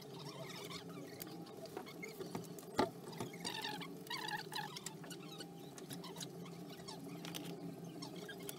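Low workshop background noise: a steady hum with faint scattered clicks and short high squeaky chirps, and one sharp knock a little under three seconds in.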